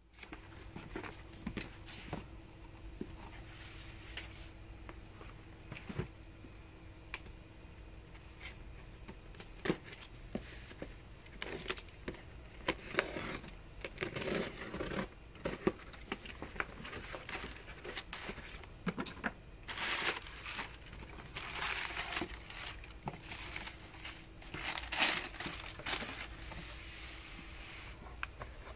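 Cardboard shipping boxes being opened by hand: packing tape tearing and peeling, cardboard flaps and paper rustling and scraping, with scattered knocks. The handling is busiest around the middle and in the later part.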